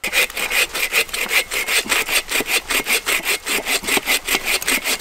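Agawa Canyon BOREAL21 folding saw cutting through dry, dead wood with quick, even back-and-forth strokes.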